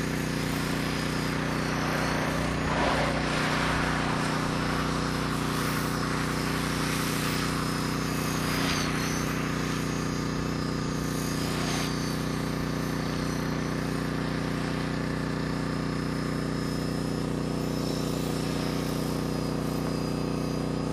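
Electric Align T-Rex 450 XL CDE RC helicopter flying at a distance: a steady hum of rotor blades and motor that holds an even pitch.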